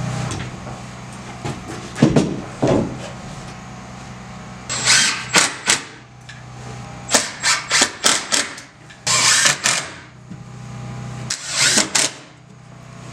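Cordless drill driving screws to fasten a metal breaker panel box to a wooden stud, running in several short bursts. A steady low hum sits underneath.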